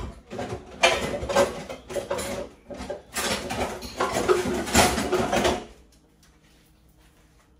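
Pots, pans and kitchen utensils clattering and knocking for about five and a half seconds, then stopping.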